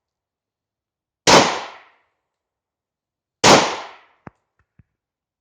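Two shots from a 9mm P.08 Luger pistol, slow aimed fire about two seconds apart, each dying away within about half a second. Two faint clicks follow near the end.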